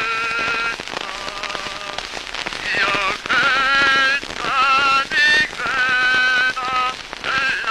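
A male singer's voice with a wide vibrato, from an Edison phonograph wax-cylinder recording made around 1890. It sounds thin, with no bass, under a constant crackle and hiss of surface noise.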